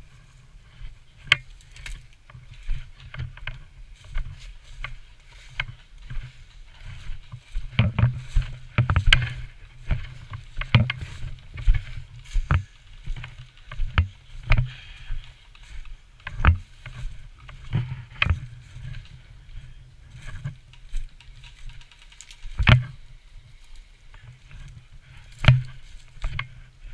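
Irregular sharp clicks and knocks, some with a low thump, over a steady low rumble of movement and rustling.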